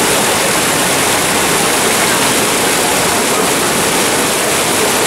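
Muddy flash-flood water rushing and churning over a rocky drop: a loud, steady rush of water.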